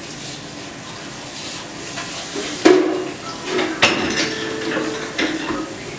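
Clinking and clattering of hard objects being handled and set down, with two sharp knocks, the first a little under three seconds in and the second about a second later.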